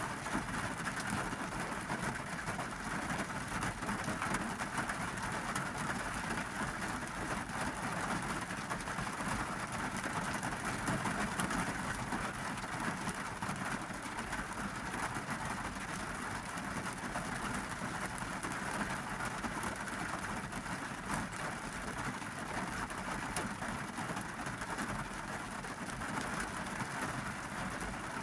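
Steady rainy-season rain falling on a car's roof and windows, heard from inside the cabin as an even patter of countless drops.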